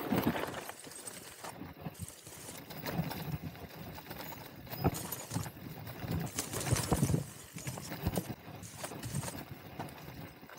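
Mountain bike riding down a rough dirt trail: an uneven run of knocks and rattles as the bike goes over bumps, with tyre and wind noise between them.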